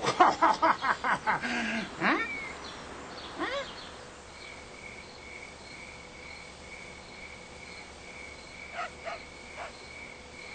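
A man shouting loudly for the first couple of seconds, then a cricket chirping steadily in a quiet room: an even, repeating high-pitched pulse, with a few faint short sounds about nine seconds in.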